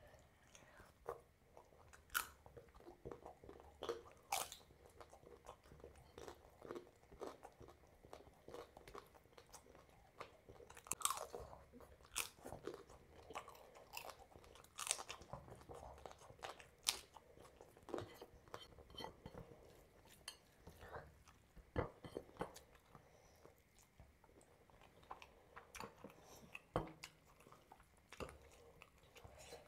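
Close-miked ASMR eating: a person biting, chewing and crunching mouthfuls of curry and rice, with sharp crunches at irregular intervals.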